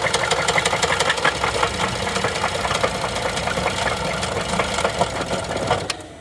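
Chevrolet 3.6L V6 idling with a loud, rapid tapping clatter from the engine, the sign of failed timing chains (camshaft-position codes P0011, P000D, P0024). The sound cuts off abruptly just before the end.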